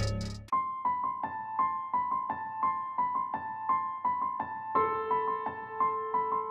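Background music: a beat cuts off about half a second in, then a soft piano melody of evenly repeating notes, about three a second, with a lower held note coming in near the end.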